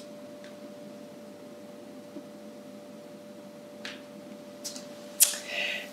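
Room tone with a faint steady mid-pitched hum. A few faint ticks, then a sharp click and a brief rustle near the end.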